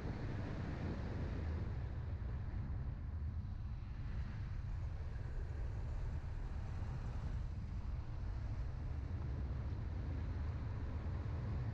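Car driving: a steady low rumble of engine and road noise, unchanging in level.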